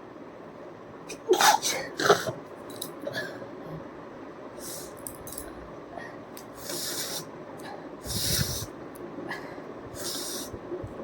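A person sneezing twice in quick succession, loud and sharp, then several softer breathy puffs of air through the nose over the following seconds.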